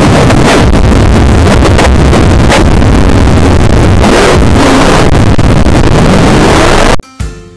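Very loud, heavily distorted breakcore noise with heavy bass, a dense wall of sound with no clear tune. It cuts off abruptly near the end, and a much quieter pitched melody begins.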